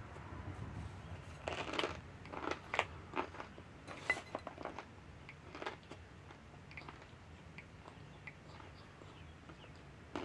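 Chewing a mouthful of raw cornstarch: a quick run of crisp crunches over the first few seconds, thinning to a few faint ones later.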